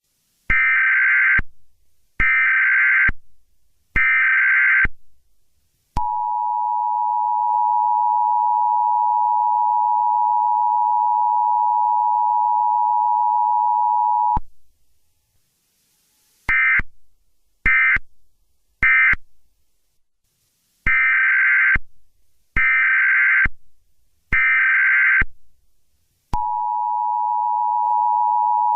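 Emergency Alert System tones: three roughly one-second digital SAME header data bursts, then the steady two-tone EAS attention signal for about eight seconds, then three short end-of-message bursts. Near the end three more header bursts play and the attention signal starts again.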